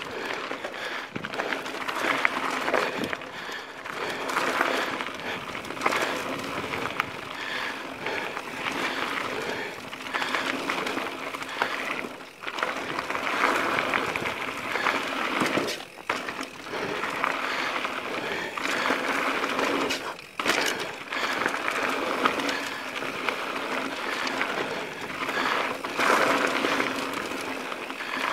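Mountain bike rolling fast down a dirt and gravel trail: tyres crunching over loose stones, with constant rattling and clicking from the bike. The noise drops briefly about three times.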